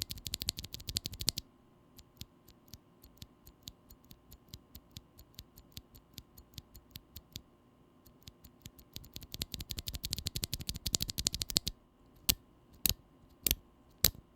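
Glorious Panda tactile mechanical keyboard switches being pressed. Fast runs of keystrokes come at the start and again around ten seconds in, with slower single presses between them and a few louder, evenly spaced presses near the end. These switches are prone to a leaf spring tick or ping noise.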